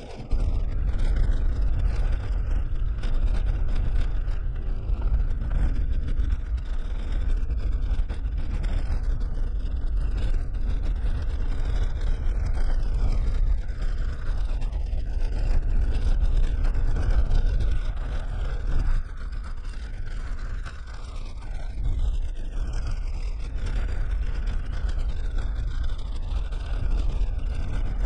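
Suzuki Jimny driving on an unpaved dirt road, heard from inside the cabin: a steady, deep rumble of engine and tyres on the rough surface.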